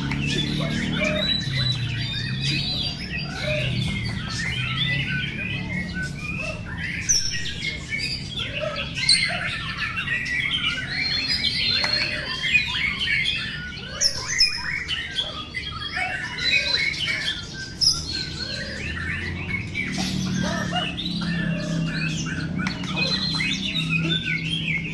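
Several caged white-rumped shamas (murai batu) singing at once in contest: a dense, unbroken tangle of varied whistles, trills and chirps, with a few sharp, loud notes standing out.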